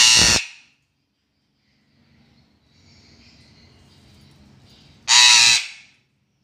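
Female eclectus parrot giving two loud, harsh squawks about five seconds apart, each about half a second long.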